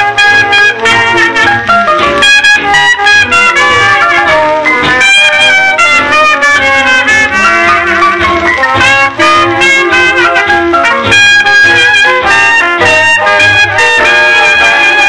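A 1935 10-inch 78 rpm shellac record playing on a turntable: a small swing-era jazz band with trumpet out in front.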